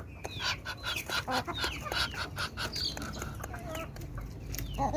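A flock of farmyard fowl calling: many short clucks and chirps overlapping, some sliding down in pitch.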